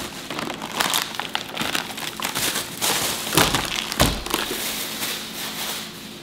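Plastic grocery bag rustling and crinkling as items are pulled out of it, with a dull thump about four seconds in as something is set down on the counter.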